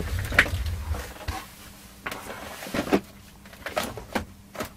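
Someone rummaging through workshop storage off to one side: a string of knocks, clunks and rattles as things are shifted about, with a low rumble in the first second.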